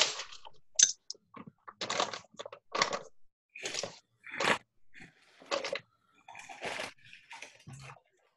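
A string of short, crunchy rustles about a second apart, from dry kitchen things being handled.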